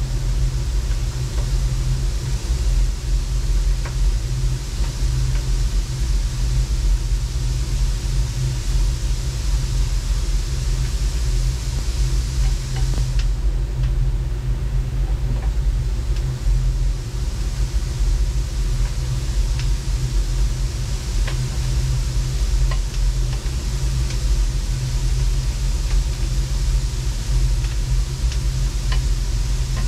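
Steady low mechanical rumble, with a few faint light clicks in the second half.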